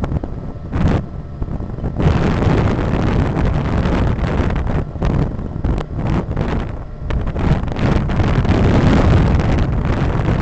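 Wind buffeting the microphone of a camera on a moving car, with road noise, swelling and dipping in uneven gusts.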